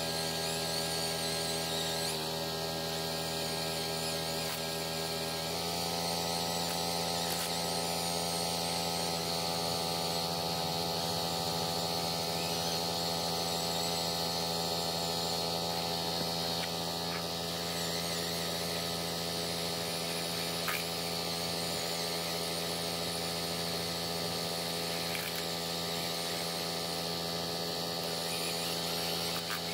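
An electric motor running steadily with a hum; its tone shifts slightly about five seconds in, and a few faint clicks come later.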